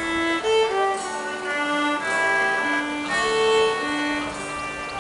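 A fiddle, acoustic guitar and concertina playing a folk tune together, the fiddle carrying a quick melody. The playing gets quieter near the end.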